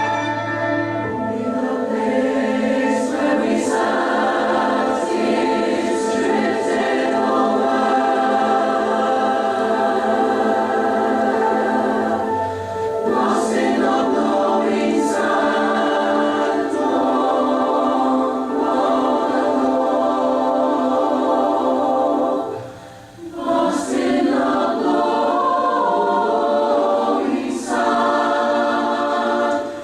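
Choir singing a choral song in sustained chords, played back from a Scotch Scream'R Type I normal-bias blank cassette. There is a short break between phrases about 23 seconds in.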